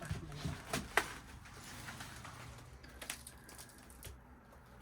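A few light clicks and knocks, the sharpest about a second in and another about three seconds in, over a faint low hum.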